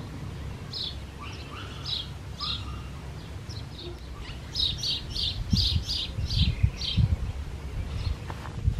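Songbirds chirping in quick series of short, high chirps, busiest from about halfway through. Low thumps join in during the second half.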